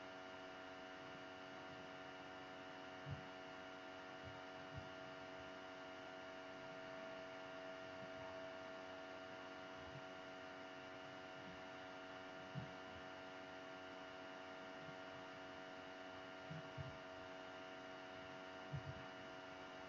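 Faint steady electrical hum made of several held tones, with a few soft low thumps scattered through it.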